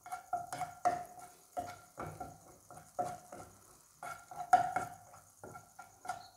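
A black spatula stirs and scrapes cubes of butter around a white nonstick frying pan as they melt, in a quick run of short scrapes and taps, about three a second. Each stroke carries a brief ringing note, and the loudest stroke comes about four and a half seconds in.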